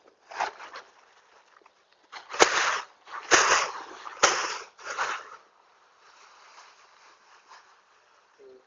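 Woven plastic seed sacks and a plastic bag being handled and pulled open, crinkling and rustling in several loud bursts from about two to five seconds in, with one sharp crack among them.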